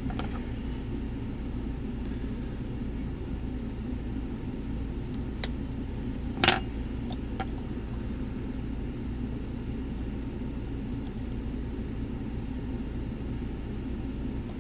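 Metal lock-picking tools working the pins of a Nemef NF4 dimple lock: a few small clicks, the sharpest about six and a half seconds in, over a steady low rumble.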